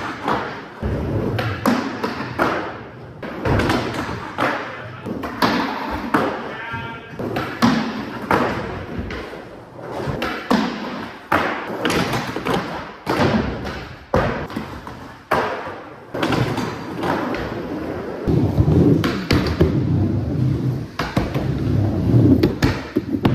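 Skateboard tricks on a low wooden box with a metal edge: repeated sharp pops, the tail and trucks knocking and sliding on the box, and wheels slapping down on concrete. In the last few seconds a steady rumble of skateboard wheels rolling over a concrete bowl takes over.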